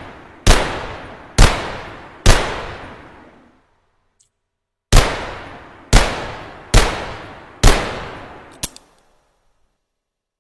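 Glock pistol firing single shots, seven in all: three about a second apart, a pause of over two seconds, then four more, each with a long echoing tail. A short sharp click follows about a second after the last shot.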